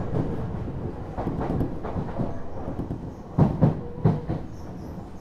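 Odakyu 1000 series electric train car (motor car DEHA 1445) running on the line: a steady rumble of wheels on track that eases down in level, with a few clacks over rail joints about three and a half and four seconds in.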